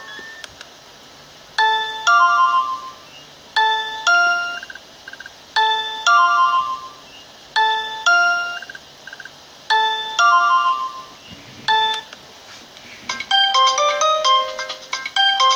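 Alcatel Big Easy A382g mobile phone playing a ringtone: a short two-chime melodic phrase repeated about every two seconds. Near the end a different, faster and busier ringtone melody begins.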